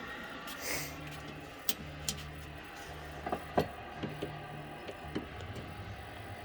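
Vintage colour television's speaker putting out a low buzz that cuts in and out every second or so, with scattered clicks and crackles over it, the sign of a poor signal connection while the channel is changed.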